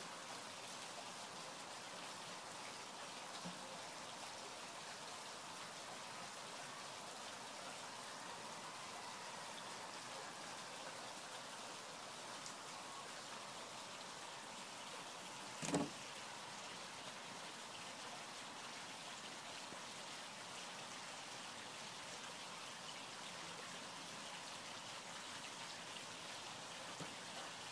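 Steady faint outdoor hiss, with a single sharp knock about halfway through.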